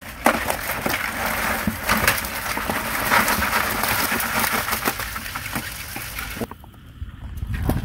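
Live freshwater crabs and water poured from a bucket into a metal basin of water: a splashing rush full of small clicks and knocks of shells, which cuts off about six and a half seconds in. A low rumble follows near the end.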